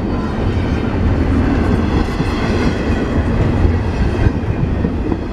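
Intermodal freight train's container well cars rolling past close by: a steady, loud noise of steel wheels running on the rails.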